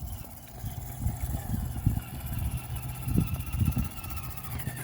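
RC rock crawler's 550 13-turn brushed motor and low-geared drivetrain whining steadily as the truck creeps along slowly, with a few dull knocks mixed in.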